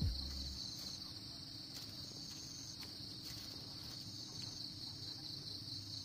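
A steady, high-pitched insect chorus trilling without a break.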